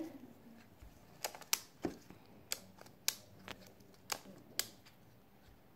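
Skewb twisty puzzle being turned by hand, its plastic pieces clicking sharply at each turn: about eight clicks at uneven intervals.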